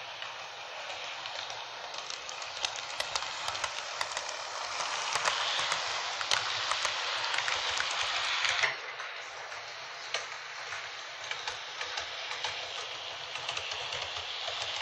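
H0-scale model train, a class 218 diesel locomotive model hauling double-deck coaches, running on metal track: a steady rushing hiss with many sharp clicks from the wheels on the rails. It grows louder toward the middle and drops suddenly about nine seconds in.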